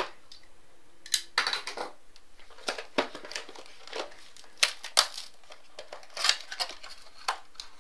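Crinkling and crackling of trading-card box packaging being handled, with irregular light clicks and taps as the cardboard mini boxes are taken out.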